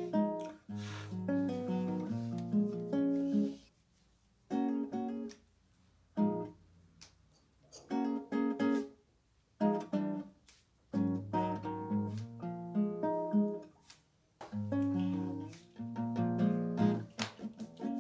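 Background music on acoustic guitar: plucked and strummed chords in short phrases, with brief pauses between them.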